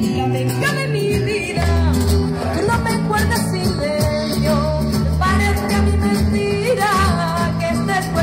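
A Latin-flavoured song with flamenco-style singing: a voice sings wavering, ornamented melodic lines over acoustic guitar, bass and percussion keeping a steady beat.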